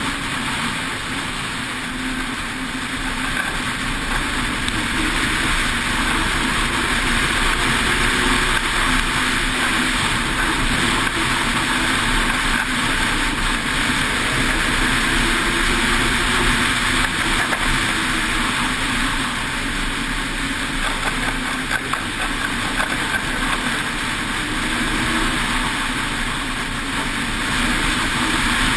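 600 XRS snowmobile running at speed along a trail, a steady engine drone with the note rising and falling a little with the throttle.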